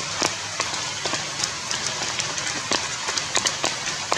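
Steady rain with irregular close drops and drips pattering at uneven intervals, several a second.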